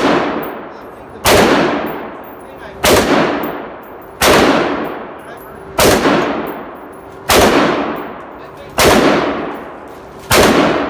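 Diamondback AR-15 rifle in 5.56 firing seven single shots in slow, steady semi-automatic fire, about one every second and a half, each crack followed by a trailing echo.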